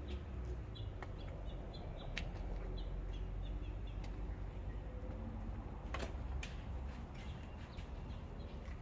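Ambient background noise: a steady low rumble with scattered sharp clicks, and a few short high chirps in the first few seconds.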